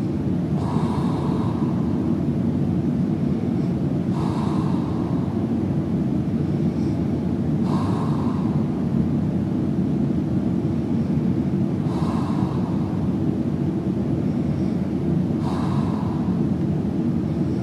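A man snoring softly with his mouth open: a soft breath about a second long comes roughly every three and a half seconds, five in all. A steady low rumble underneath is louder than the breathing.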